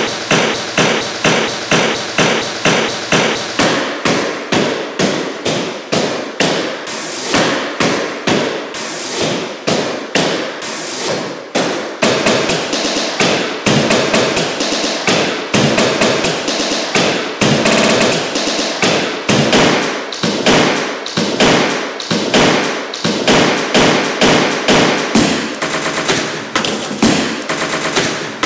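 A looped beat built from demolition sounds: hammer blows and thuds on drywall, repeated in a steady rhythm of about two strong hits a second with lighter taps between.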